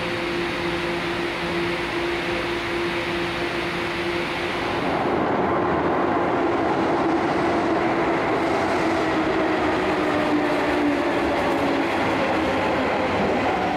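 Subway train pulling in alongside an underground platform, its running noise loud and steady, with a whine that falls slowly in pitch as it brakes.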